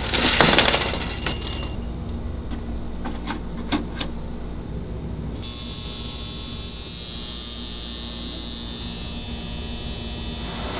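A wire mesh basket of metal 3D-printed parts clinks and rattles against a stainless steel ultrasonic cleaner's tank as it is set in, with a few further clicks. About halfway through, the ultrasonic cleaner is switched on and its steady high hiss of cavitation in the bath sets in abruptly over a low factory hum.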